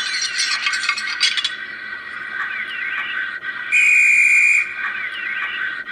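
DCC sound decoder in an OO-scale Thomas the Tank Engine model playing sound effects from the TV show through its small speaker. First a clanking of coupling chains lasting about a second and a half, then a single steady, shrill guard's whistle blast of about a second a little past the middle, the loudest sound.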